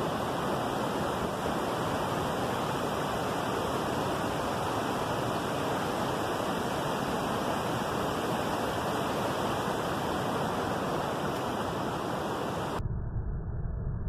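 Steady rush of river water running over rock rapids. Near the end it cuts off abruptly and is replaced by a duller, muffled low rumble.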